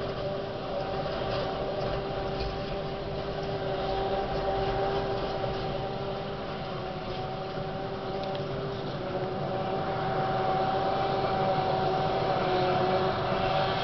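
Self-propelled forage harvester chopping maize: its engine and chopping drum run with a steady whine that grows louder over the last few seconds as the machine comes closer.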